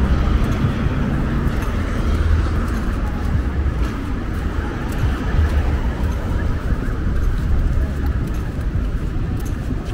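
Steady outdoor street ambience: a low rumble of road traffic and wind, with no single sound standing out.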